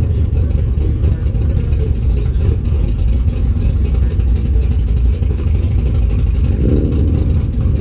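Chevrolet C10 pickup's engine running with a steady deep exhaust rumble as the truck creeps forward at walking pace.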